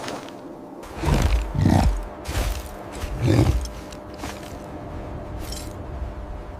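Deep animal growls or roars, four heavy ones in the first half, over a low steady music drone.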